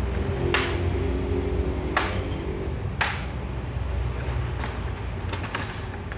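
Sharp clicks and light knocks from a Wincor ATM cash cassette being handled and worked on: three loud clicks about a second apart, then a quicker run of smaller clicks, over a steady low hum.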